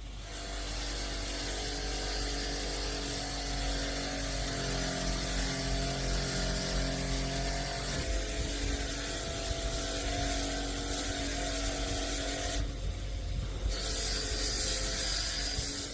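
Power tool running against the rusty steel of a sword blade, a steady motor whine under a harsh abrasive hiss. The hiss drops out for about a second near the end as the tool lifts off, then comes back louder.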